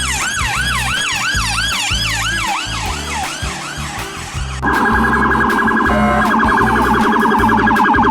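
Police siren sound effect: a fast repeating wail of about three sweeps a second that fades out, over background music with a steady beat. About five seconds in, a louder, rapidly trilling electronic alarm tone takes over.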